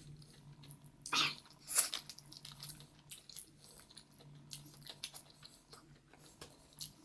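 Close-miked chewing and mouth noises while eating, with many small wet clicks and two louder smacks about a second in and just before two seconds. A low steady hum runs underneath.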